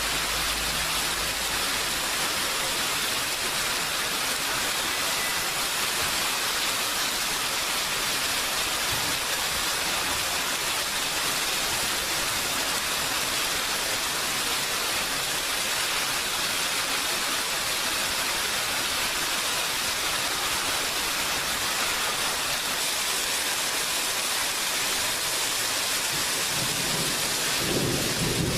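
Steady heavy rain falling, an even hiss, with a low rumble of thunder rising near the end.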